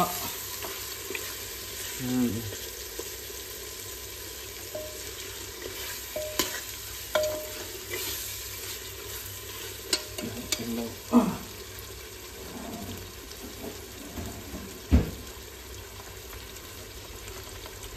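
Marinated mutton frying in oil in a pressure cooker, sizzling steadily while a ladle stirs it. Scattered knocks and scrapes of the ladle against the pot, the sharpest about eleven and fifteen seconds in.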